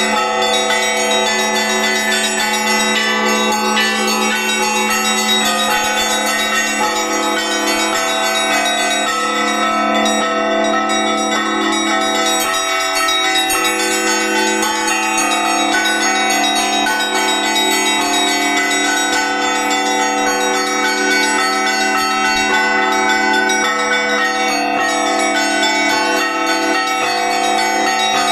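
Russian Orthodox church bells in an Easter peal: several bells of different pitches struck again and again without a break, their ringing overlapping into one continuous sound.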